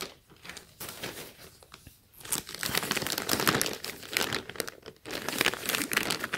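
Plastic packaging crinkling and rustling as a bag sealed in a clear plastic sleeve and black plastic wrapper is handled and slid out of a poly mailer, with a denser stretch of crackling from about two seconds in.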